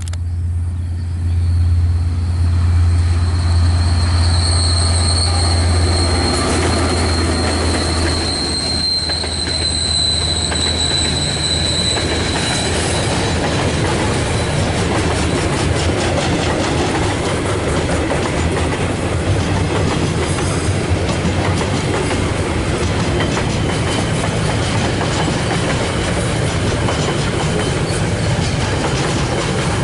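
KiwiRail DL-class diesel-electric locomotive passing close with a strong low engine hum, followed by a long container freight train rolling by with a steady wheel rumble and rail clatter. A thin high wheel squeal sets in a few seconds in and fades out after about twelve seconds.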